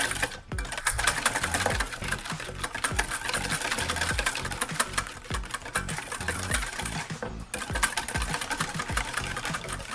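A utensil stirring mayonnaise and chili sauce briskly in a bowl, clicking rapidly and evenly against the bowl, with a brief pause about seven seconds in.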